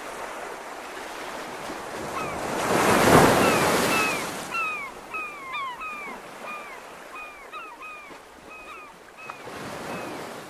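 Ocean surf washing in, with one big swell of a breaking wave about three seconds in and a smaller one near the end. Short falling chirps repeat over the waves from about two seconds in.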